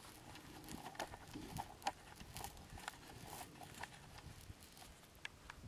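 Faint, irregular crunching and crackling of dry leaf litter, a scattering of sharp light steps or rustles over a quiet woodland hiss.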